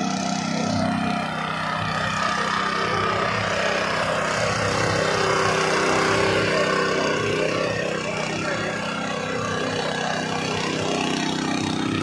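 Small engine of a walk-behind mini power tiller running steadily, its rotating tines digging through loose sandy soil.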